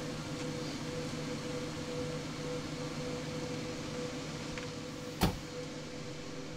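A Lincoln Town Car's door shut with one solid thunk about five seconds in, over a steady low hum. A second sharp knock comes right at the very end.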